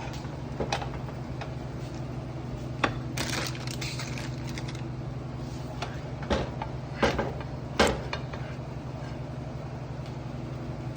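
Utensil clinking and scraping against a cooking pan with the cooked chicken and spinach: a handful of short knocks and clinks, the loudest a little past the middle, over a steady low hum.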